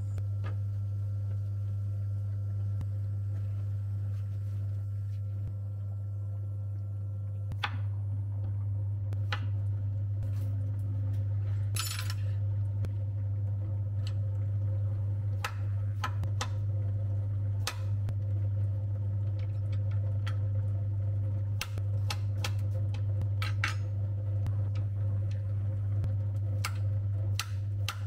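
Chef's knife slicing a cucumber on a cutting board, with metal chopsticks laid alongside to stop the blade: sharp, irregular taps of the blade coming down, starting several seconds in. A steady low hum runs underneath.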